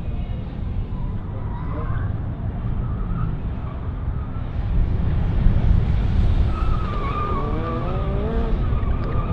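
Car driven hard through an autocross cone course: engine running under load, with tyres squealing while cornering. The squeal is faint near the start and becomes strong and wavering in the second half.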